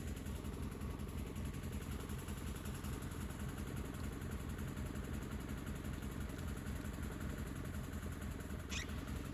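Portable band sawmill's engine running steadily at a low idle-like hum. Near the end there are a few short high chirps.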